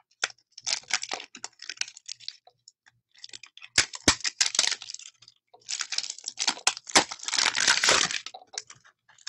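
Cellophane wrapper on a pack of glimmer paper crinkling and tearing as it is pulled open by hand. It comes in several bursts with a few sharp snaps, the longest stretch near the end.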